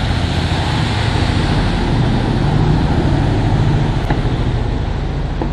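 Khlong Saen Saep canal express boat passing close at speed, its engine running loud and steady, with the rush of its churning wake. The sound swells to its loudest a little past the middle, then eases off slightly.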